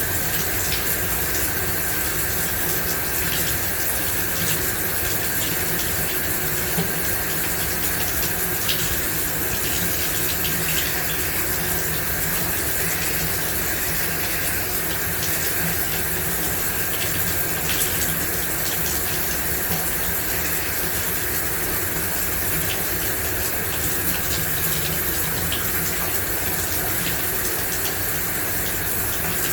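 Shower running: a steady spray of water with small splashes and drips.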